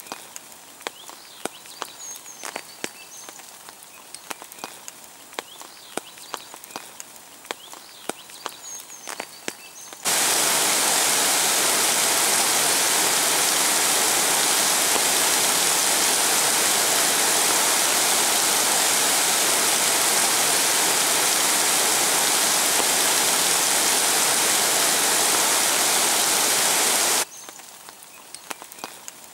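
Rain falling on a canal and path: a light hiss with many sharp drop clicks. About ten seconds in it cuts to the loud, steady rush of water pouring over a stone weir, which stops abruptly near the end, giving way to the quiet patter of rain again.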